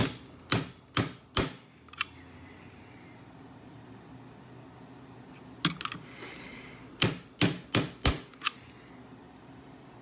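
Ball-peen hammer tapping the brass armor front of an antique Yale mortise lock held on an anvil, to repair the front plate. It gives four sharp strikes in the first second and a half and a lighter one, a pause, then a quick pair and a run of four strikes about a third of a second apart, ending with a lighter tap.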